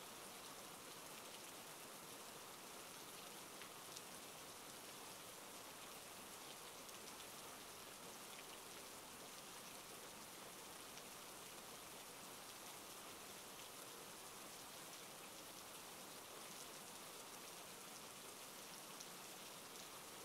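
Faint, steady rain: an even hiss of falling rain with a few light drop ticks.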